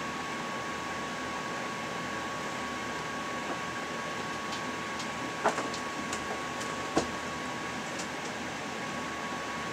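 Steady background hiss with one constant thin tone, the kind of noise a fan or air conditioner makes. A few light clicks come in about halfway through, the loudest two about a second and a half apart.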